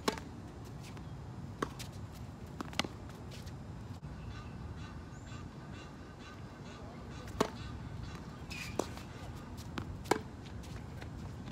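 Tennis balls struck by rackets and bouncing on a hard court: sharp pops, the loudest right at the start as a serve is hit, then more hits at uneven intervals, with a gap of several seconds in the middle.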